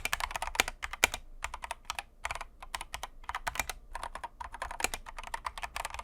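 Typing on an Akko 3061S mechanical keyboard fitted with linear Akko Jelly Pink switches: a fast, dense run of keystrokes with a couple of brief pauses.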